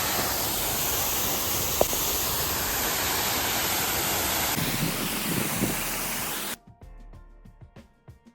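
Waterfall rushing: a loud, steady roar of falling water, which cuts off suddenly near the end as quiet background music comes back in.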